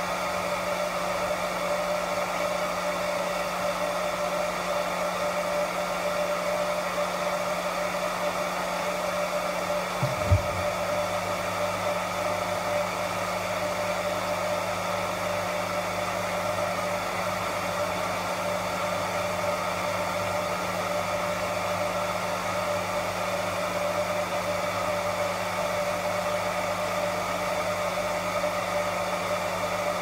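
Hair dryer blowing steadily, drying a kitten's fur after its first shampoo. A single short knock about ten seconds in, after which a low hum joins the steady sound.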